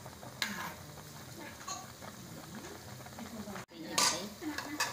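Pot of chicken and cabbage soup bubbling at the boil while a metal ladle stirs it, with a few brief scrapes and splashes, the loudest about half a second in and near the end.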